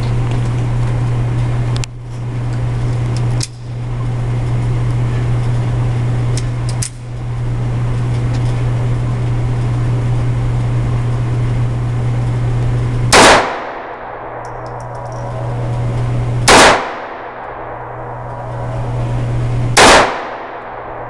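Three loud handgun shots fired at a slow, even pace about three seconds apart, each one sharp and overloading the recording. Earlier, fainter single shots crack over a steady low hum.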